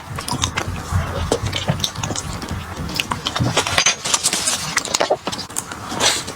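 Close-miked eating sounds: irregular crunching and chewing with many sharp wet clicks and crackles.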